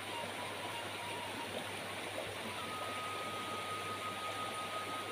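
Shallow mountain stream rushing over rocks in small white-water cascades: a steady, even rush of water.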